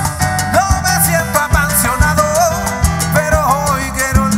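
Cuban timba band playing salsa live: steady bass line and percussion under a bending melody line, with no break in the music.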